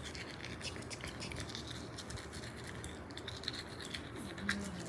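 A toothbrush scrubbing a Bichon Frise's teeth: quiet, rapid, scratchy strokes of the bristles.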